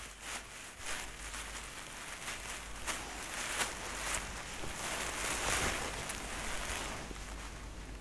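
Dry leaf litter rustling and crackling under mouflon hooves, with a few sharp ticks among the rustling.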